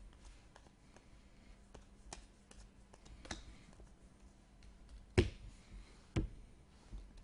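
Trading cards being handled and flipped through: faint scattered clicks and taps, with two sharper snaps about five and six seconds in.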